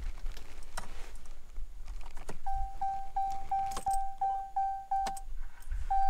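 Keys jingling and clicking as the key goes into the ignition of a 2014 Ram pickup. Then the truck's dashboard warning chime beeps rapidly, about three beeps a second, for nearly three seconds, and starts again near the end as a longer tone.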